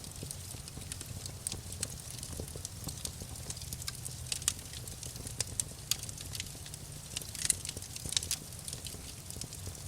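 Wood burning in a campfire, crackling with frequent sharp pops and snaps over a low steady rumble of flames; the loudest pop comes about seven and a half seconds in.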